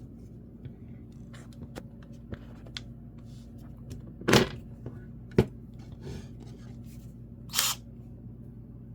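Plastic clicks and knocks from handling the cordless drill and its right-angle attachment. There is a louder knock about four seconds in, a sharp click a second later, and a brief scrape near the end, all over a steady low hum.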